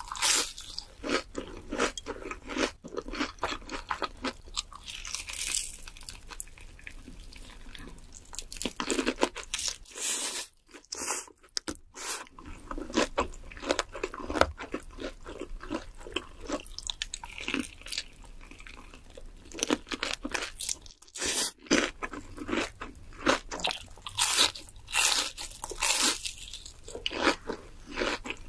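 Close-miked crunching and chewing of crispy breaded fried food, dense irregular crunches with a brief lull about ten seconds in and another near twenty-one seconds.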